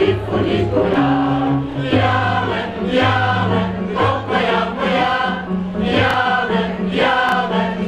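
A vocal group singing a song together in harmony, with held low notes underneath.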